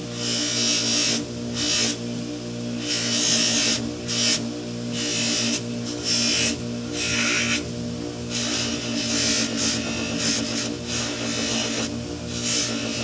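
Bench buffer running with a steady electric-motor hum, while something is pressed against its spinning cloth buffing wheel in repeated strokes that make a hissing scrape. The wheel is being cleaned of red rouge and dressed for white diamond compound.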